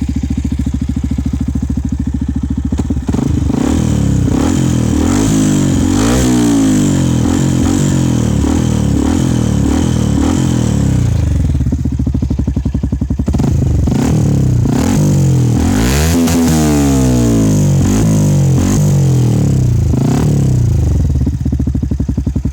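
Yamaha WR125X's single-cylinder four-stroke engine idling, then revved over and over in quick throttle blips, each rising and falling in pitch. It drops back to idle near the end.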